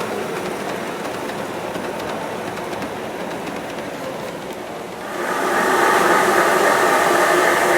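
LGB G-scale model train running on garden-railway track. About five seconds in, a louder steady sound of several tones sets in.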